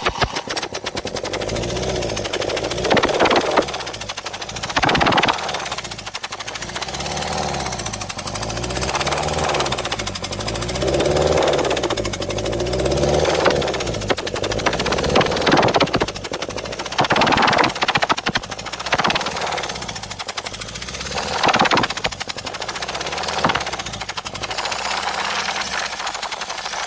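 Hyundai Getz engine turning over with a rapid, uneven mechanical pulse and louder hissing bursts every few seconds. Cylinders 1 and 2 are dead even though both spark and fuel are reaching them. The sound stops abruptly at the end.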